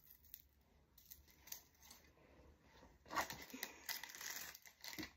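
Faint small clicks and light rattles of jewelry and a small clear plastic case being handled in the fingers, busiest and loudest in the last two seconds.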